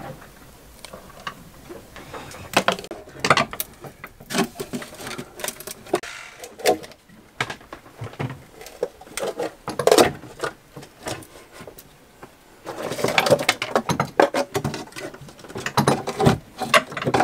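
Poorly wetted-out fiberglass being handled, cracked and pulled away from a sailboat's hull by hand: scattered clicks and crackles, then a longer run of dense crackling and scraping near the end.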